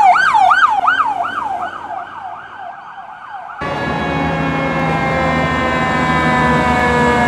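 A Chevrolet Tahoe fire command vehicle's siren on a fast yelp, about three sweeps a second, fading away. About three and a half seconds in it cuts suddenly to a louder fire truck siren sliding slowly down in pitch, with a low steady hum underneath.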